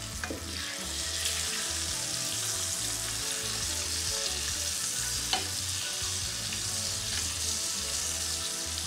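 Coated hake fillets sizzling steadily in hot oil in a frying pan, with a metal fork tapping and scraping against the pan as the pieces are turned; a sharper tap about five seconds in.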